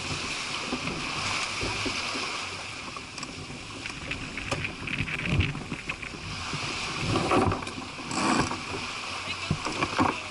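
Wind buffeting the microphone and water rushing along the hull of a small sailboat under way in rough sea, a steady hiss with several louder bursts in the second half.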